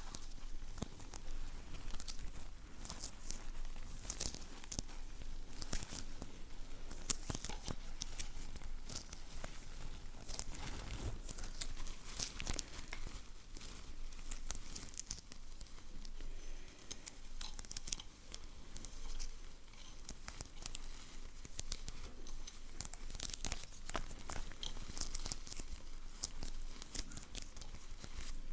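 ASMR sticky sounds close to the microphone: a steady run of quick, irregular crackling as something sticky is peeled and pulled apart by hand, with some crinkling.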